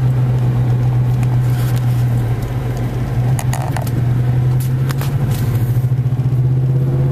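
Car running in slow traffic, heard from inside the cabin: a steady engine and road hum, with a few short clicks and knocks.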